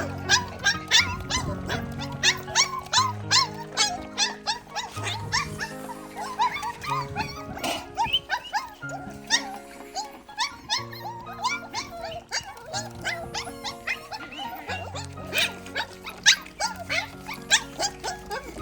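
Dogs chewing and crunching big meaty bones, a quick run of sharp cracks and crunches several times a second, over background music.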